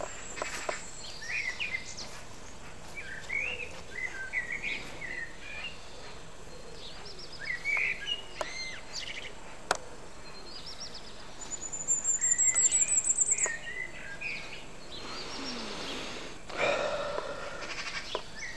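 Several songbirds singing at once in a garden morning chorus: short chirps and warbled phrases come one after another. Around twelve seconds in, a high, fast trill climbs in pitch for over a second.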